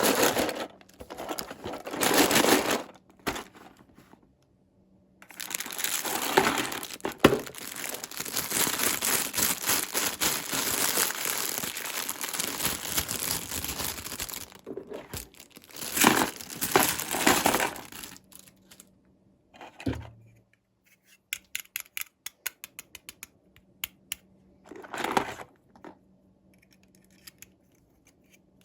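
Toy packaging being crinkled and torn open by hand, with a long stretch of steady crinkling. Near the end come a run of small, sharp clicks and taps.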